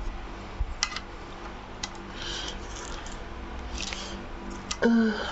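A few sharp light clicks and two short scraping rustles of hands working on a machine part, over a steady low hum.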